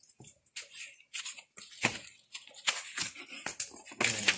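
Cardboard box and packaging being handled as the box is opened: a quick, irregular run of rustles, scrapes and crinkles from cardboard, a paper instruction sheet and plastic wrap.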